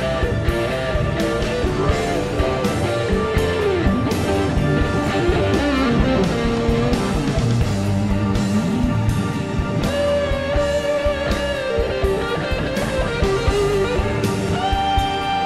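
Background music: guitar-led rock with a steady drum beat and a bending lead guitar line.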